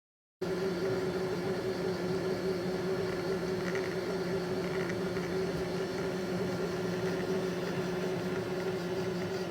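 Bambu Lab 3D printer running mid-print: a steady motor hum with a held whine, starting abruptly after a moment of silence.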